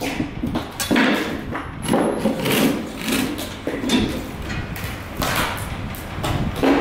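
Irregular knocks and thuds, about one a second, of a hammer, a steel square and wooden strips being handled on plywood sheets.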